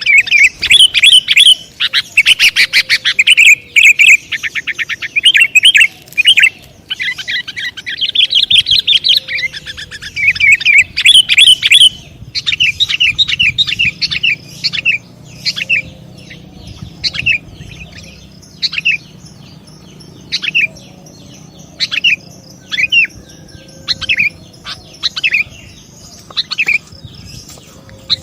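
Sooty-headed bulbul calls: loud, rapid runs of bright chirps for the first twelve seconds or so, then quieter single chirps spaced a second or more apart.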